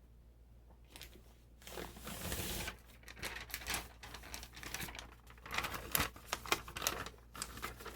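A sheet of paper rustling and crinkling as it is handled and fed into a 1950s Royal manual typewriter, starting with a longer rustle about two seconds in, followed by many small irregular clicks and knocks.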